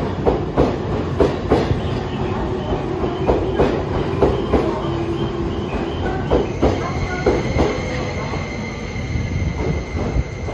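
An E261 series electric train rolls slowly into the platform, its wheels clacking irregularly over rail joints and points. A high, steady squeal comes in about two-thirds of the way through as the train slows.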